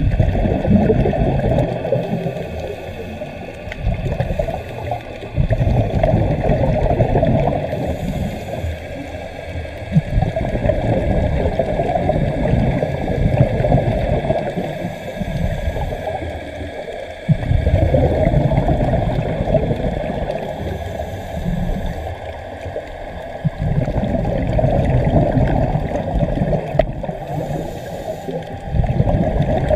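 Underwater sound of a scuba diver breathing through a regulator: a rumble of exhaled bubbles about every five or six seconds, with a faint hiss of inhalation in the gaps between.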